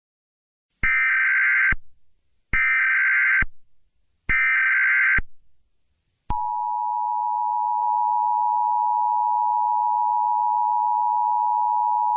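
Emergency Alert System header: three identical one-second bursts of SAME data warble, then the steady two-tone attention signal that begins about six seconds in. Together they mark the start of an emergency alert broadcast.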